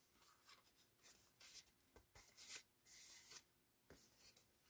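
Faint rustling and sliding of card stock as a folded easel card is opened and handled, in several short soft brushes.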